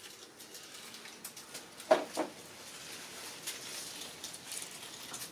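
Two sharp metallic clanks about a third of a second apart, a steel pipe being clamped in a cast-iron bench vise, with faint scuffs and rustling around them.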